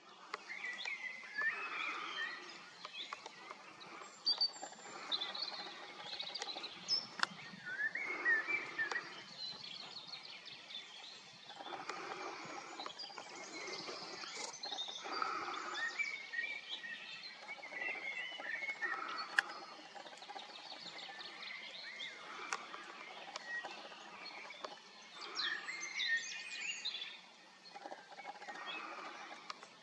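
Outdoor ambience with birds chirping and singing, many short calls and quick trills over a steady background hiss.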